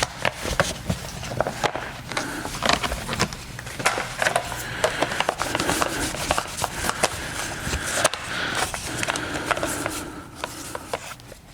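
Rubbing and scattered light clicks and knocks of hands handling trim parts and wiping surfaces with a cloth and waterless wash.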